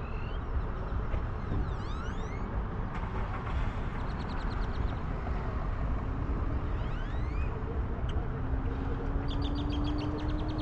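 Steady wind and travel rumble on a moving action camera, with a few short rising chirps and quick ticking trills over it, and a low steady hum that comes in near the end.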